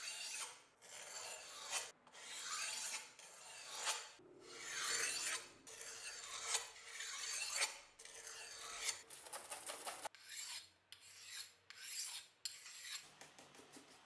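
Hand-polishing a steel cleaver blade: a pad is rubbed back and forth along the metal in rasping strokes of about a second each, then in quicker, shorter strokes for the last few seconds.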